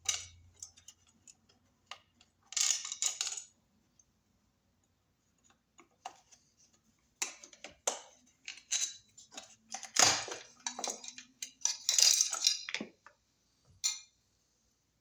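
Scattered metallic clinks, clicks and scraping of hand tools and hardware while an electrical box is taken off the wall, in short bursts with pauses; the busiest and loudest stretch falls in the second half.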